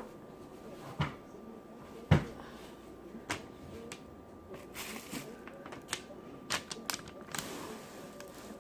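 Scattered clicks, taps and knocks of things being handled and set down on a table. The loudest is a single knock about two seconds in, and a quick run of clicks follows later.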